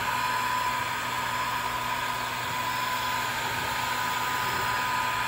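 Swiitol 18 W diode laser engraver running while it engraves: a steady fan-like whir with a constant high tone and a low hum, unchanging throughout.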